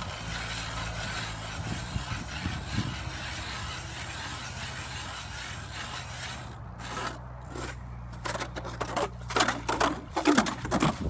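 Hand ice auger being cranked through lake ice, its blades grinding and scraping steadily. From about six and a half seconds in, the scraping turns choppier and louder, in uneven bursts loudest near the end, as the auger is worked up and down in the slushy hole.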